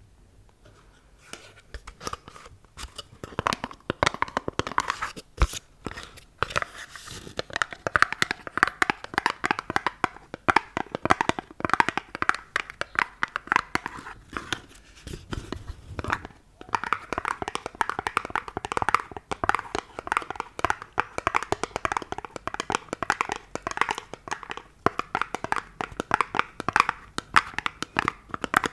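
Fast, dense ASMR finger tapping on an object: a steady stream of crisp clicks that starts about a second and a half in and eases off briefly in the middle.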